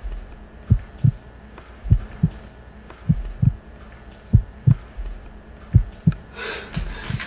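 A slow heartbeat sound effect: deep paired lub-dub thumps, a pair a little more than once a second. Near the end a hissy rush of noise swells up.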